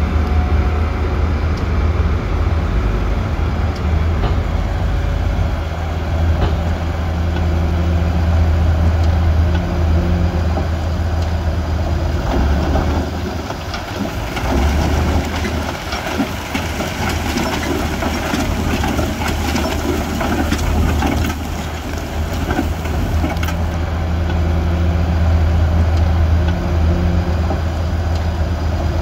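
Heavy diesel earthmoving machinery running with a steady low engine drone. For about ten seconds midway, dense crunching and scraping of rock and gravel rises over the engine, as stone is pushed.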